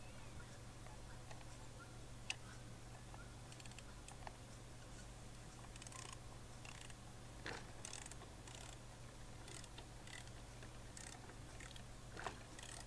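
Faint, scattered clicks of long-handled ratchets winding a fence-rail spooler to tension the rail, over a steady low hum.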